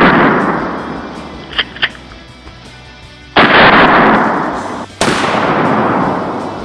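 Mossberg pump-action 12-gauge shotgun firing slugs: the fading tail of one blast, the pump action racked with two quick clicks, then two more loud blasts about a second and a half apart, each with a long echo dying away.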